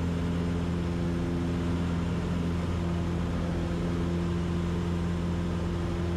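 Cessna 150's four-cylinder Continental O-200 engine and propeller running steadily in flight, a constant low drone with no change in pitch.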